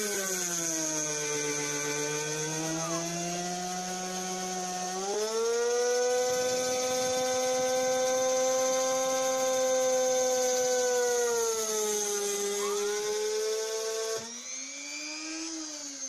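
Rotary-tool spindle of a homemade CNC router cutting a contour through a plexiglass (acrylic) sheet, a steady motor whine with a thin high tone above it. Its pitch sags and recovers as the cutting load changes, stepping up about five seconds in. Near the end it rises and then falls away.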